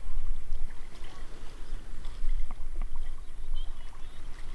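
Seawater sloshing around people in the ocean, with a steady low rumble of wind on the microphone and a few faint splashes.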